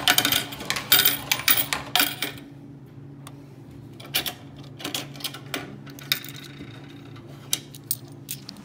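Coins rattling and clinking in a Coca-Cola vending machine's coin return for about two and a half seconds, then scattered single clicks as coins are handled and fed into the coin slot, over a low steady hum.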